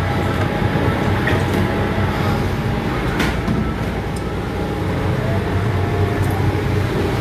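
A boat's engine running steadily under way, a continuous low rumble with a rush of noise over it and a few brief high clicks.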